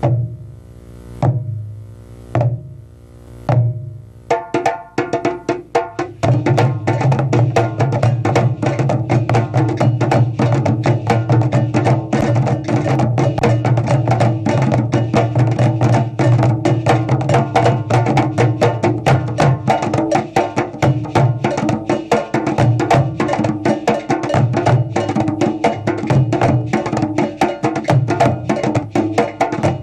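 Drum ensemble playing African-style drumming. It opens with a few single ringing drum strokes about a second apart; about four seconds in, fast dense drumming starts, and deep low drum strokes join in about two seconds later and carry on.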